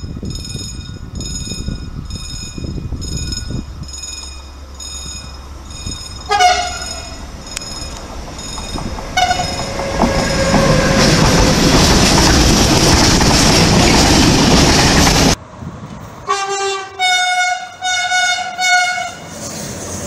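A repeated ringing chime sounds a little under twice a second. A Medway electric freight locomotive then gives two short horn blasts and passes close by with loud wheel and wagon noise. After a sudden cut, a second freight locomotive's horn sounds four short toots in a row as a greeting.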